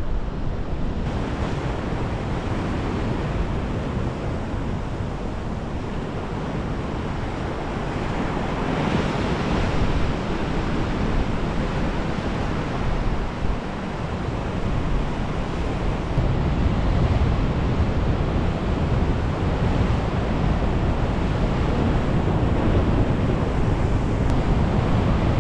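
Ocean swell surging and breaking into white water against a rock ledge: a continuous rushing wash that swells and grows louder in the second half.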